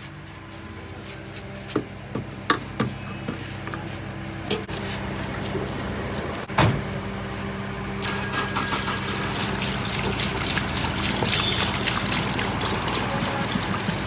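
Diesel poured from a plastic jerrycan through a metal funnel into a car's fuel filler, the liquid running in as a steady splashing from about eight seconds in. Before that, several sharp knocks as the can and funnel are handled, with a steady engine hum underneath throughout.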